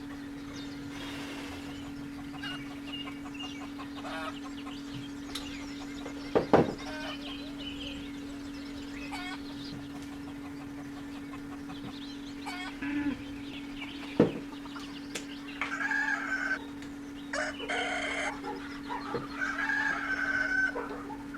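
A steady low hum runs throughout, with two sharp knocks, one about six seconds in and one about fourteen seconds in. Short, pitched, fowl-like calls come in the second half.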